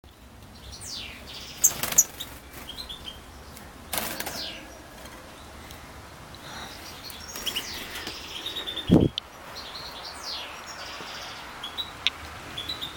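Goldfinch of the large Siberian form (Carduelis carduelis major) calling and twittering, with thin downward-sliding notes and short chirping runs. A few sharp knocks come about two and four seconds in, and a low thump about nine seconds in.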